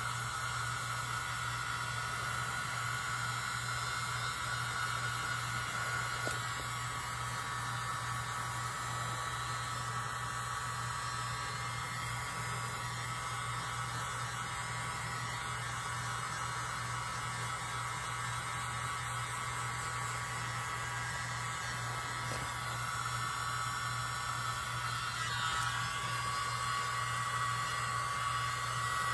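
Electric hair dryer running steadily: a continuous airy rush over a motor hum, blowing wet acrylic paint outward on the canvas to open it into a bloom.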